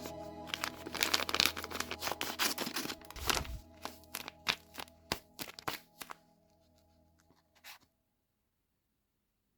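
Paper and tape crinkling and crackling, with a quick run of sharp crackles that thins out into scattered ones, over background music; all sound stops about eight seconds in.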